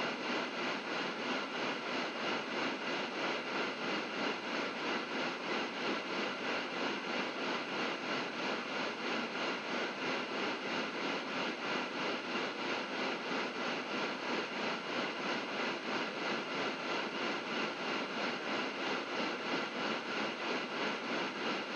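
Harsh noise drone: a dense, unbroken wall of hissing, distorted noise, pulsing in loudness at a fast regular rate.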